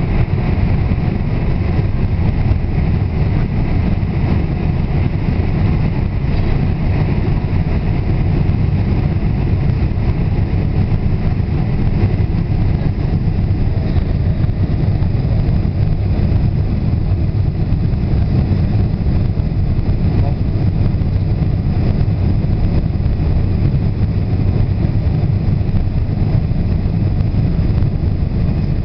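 Steady cabin noise inside a Boeing 747 in flight. The jet engines and rushing airflow make a deep, even drone that holds level throughout.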